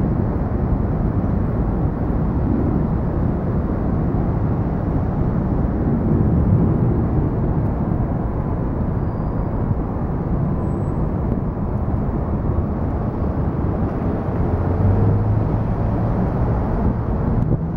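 Outdoor city street noise: a steady low rumble of road traffic mixed with wind on the microphone. There is a slightly stronger low engine hum about fifteen seconds in.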